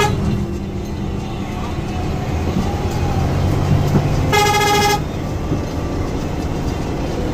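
Diesel engine of a Hino AK8 bus running steadily under way, heard from inside the cab. A little past the middle comes one short horn blast: a single steady tone about half a second long.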